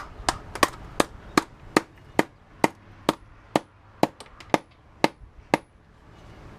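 Repeated hammer strikes on an LED flood lamp's housing to knock out its remaining plastic parts. The blows come evenly, about two a second, and stop near the end.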